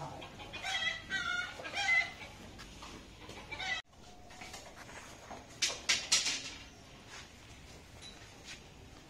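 Chicken clucking, a run of short repeated calls that cuts off suddenly about four seconds in. Later, a quick cluster of sharp clicks.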